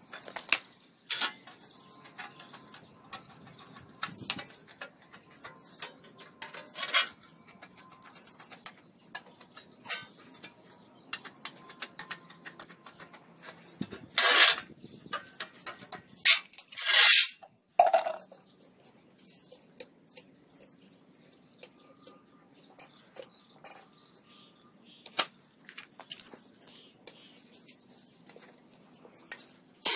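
Intermittent clinks, knocks and small clatter from objects being handled, with two short, loud rushing bursts about 14 and 17 seconds in.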